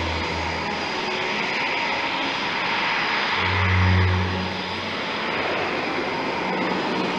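Airbus A400M Atlas's four turboprop engines and propellers running, a loud steady rush with a low propeller drone that swells about four seconds in.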